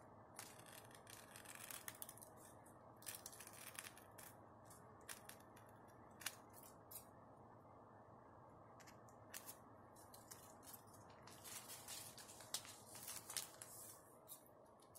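Faint snipping of scissors cutting through aluminium foil sandwiched between two sheets of notebook paper, rounding off the foil's corners in short, irregular cuts with a short pause about midway.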